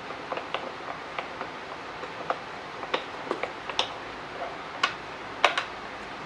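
Irregular light clicks and taps from hands and a tool working on the plastic housing of a Bosch pressure washer while its screws are taken out, the sharpest two clicks about five seconds in.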